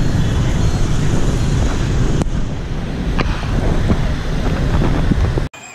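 Wind buffeting the camera's microphone while it moves through motorbike and car traffic, a heavy rumble with street traffic noise underneath. The sound cuts off suddenly near the end.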